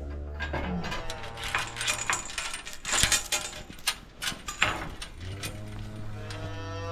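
Beef cows mooing low and drawn-out, calling for their new calves, with sharp clicks and clinks in between.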